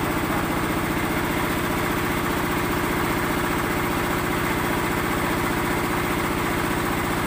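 Small stationary engine running steadily with a fast, even beat, driving a concrete mixer for making concrete blocks.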